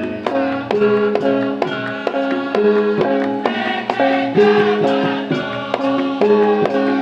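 Live music: a repeating, evenly paced pattern of struck pitched notes with voices singing over it.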